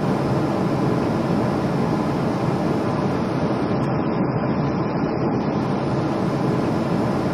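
Steady jet-airliner noise: an even rumble with no distinct tone. The higher hiss thins out for a couple of seconds midway.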